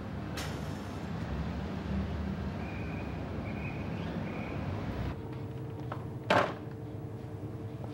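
Low steady rumble of a car ferry's machinery on the fore deck by the mooring winch, with a faint thin squeal on and off in the middle. About five seconds in it gives way to a quieter steady hum, broken a second later by a short, loud rush of noise.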